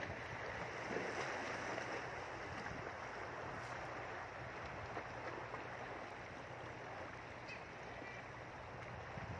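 Steady rush of water along a rocky shore, with a few faint clicks.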